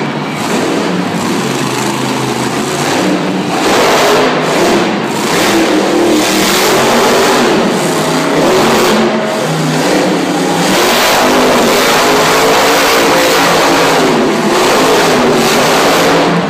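Monster truck engine revving hard as the truck spins donuts on a dirt arena floor, the revs rising and falling without a break. Loud.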